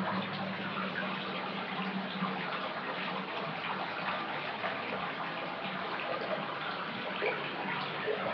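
Water running from a tap into a bathtub as it fills, a steady even splashing.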